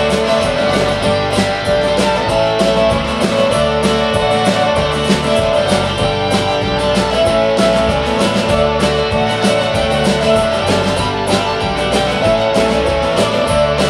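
Live band's instrumental break: a fiddle plays the lead in held, bowed notes over strummed acoustic guitar, electric guitar, bass and drums keeping a steady beat.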